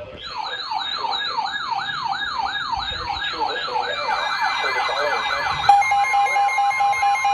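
Weather radios sounding their alarm for a severe thunderstorm warning: a fast warbling, siren-like alert tone that speeds up about four seconds in. About six seconds in, a steady alarm tone and beeping join it.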